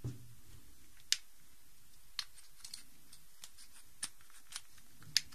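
Light plastic clicks and taps at irregular intervals, about half a dozen, as Rubik's cube pieces are handled and pressed back into a disassembled 3x3x3 cube.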